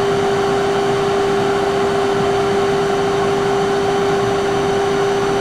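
SMTW H163 plain cylindrical grinder running with its table traversing at about its slowest feed rate: a steady machine hum with one strong steady mid-pitched tone over an even hiss.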